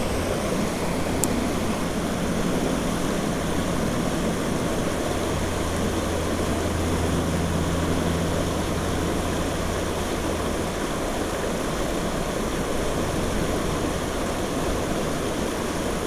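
Steady rush of creek water pouring over a small falls and through fast white-water riffles.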